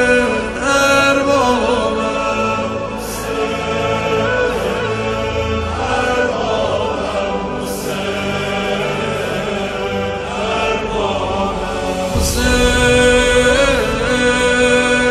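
Persian devotional lament (noha) sung as a chant with layered choir-like voices holding long, sliding notes over a sustained low backing. A new phrase comes in fuller about twelve seconds in.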